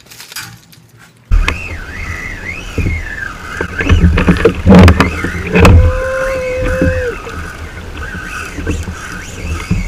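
Wind buffeting and water noise on a kayak-mounted action camera at sea, with a few sharp knocks against the hull or gear about halfway through and a wavering high-pitched whine over it.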